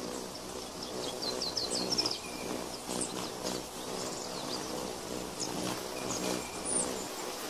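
Wild bird calls: a quick run of short, high chirps between one and two seconds in, and a few more high calls later, over natural ambience with a steady low hum.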